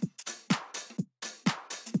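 Electronic deep house drum loop playing at 125 BPM: a kick on every beat, about two a second, with hi-hat and percussion hits between them. Its low end is cut by an EQ, so the kicks carry little deep bass.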